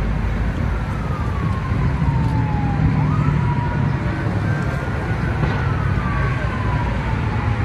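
An emergency vehicle siren wailing, its pitch sliding slowly down and back up several times, over the steady rush of freeway traffic passing close by.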